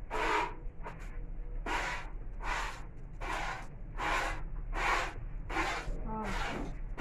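Cow being milked by hand: regular hissing squirts of milk into a pail, about four every three seconds as the hands alternate on the teats. A brief low animal call near the end.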